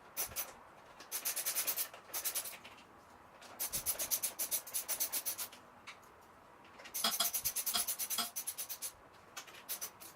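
Ratchet wrench clicking in three quick runs of about ten clicks a second, each a second or two long, with a few single clicks between.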